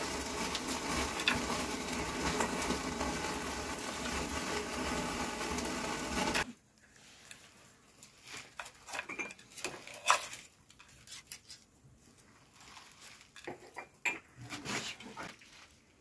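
A steady noise that cuts off suddenly about six seconds in, followed by scattered soft clinks and taps of a plate and metal tray as hands pick at torn flatbread.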